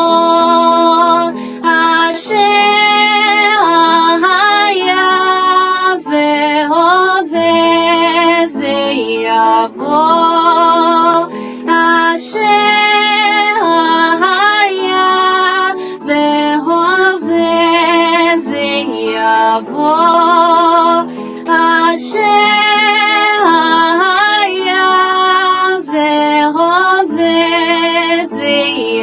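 Worship music: a woman's voice singing a wavering, sliding melody over held chords.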